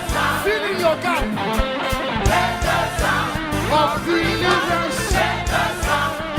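Live gospel worship music: a band with bass, drums and guitar plays while voices sing over it.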